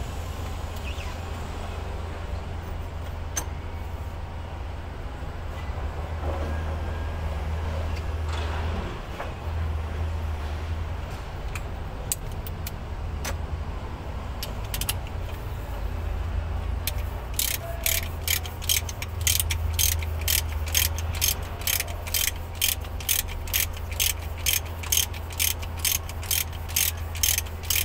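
Ratchet wrench clicking in quick, even strokes, about two or three a second, from about two-thirds of the way in, as the bolts of a diesel engine's fuel filter bracket are worked loose. Before that come scattered tool clicks, with a steady low hum underneath throughout.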